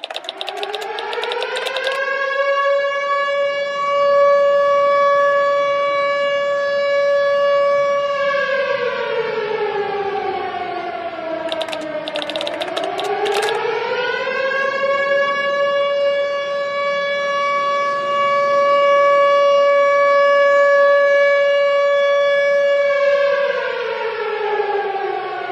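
Air-raid warning siren wailing: it rises to a steady tone and holds, sinks to a low dip about halfway, rises and holds again, then starts to fall near the end. Short runs of rapid typewriter-like clicking come at the start and about halfway.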